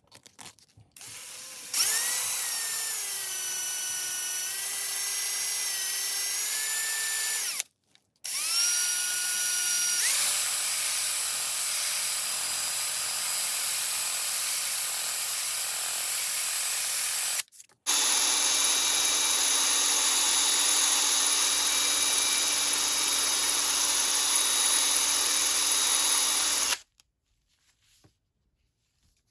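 Small electric power tool run in three bursts of several seconds each, with short stops between. The motor whine spins up and shifts in pitch under load, and from the second burst on it is joined by a rough grinding hiss as the tool works the rusty metal.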